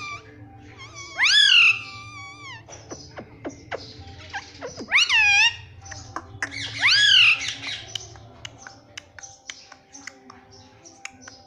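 Indian ringneck parrot calling: three loud, drawn-out calls that each sweep up in pitch, with softer chirps between them, then a run of short clicks and chirps near the end.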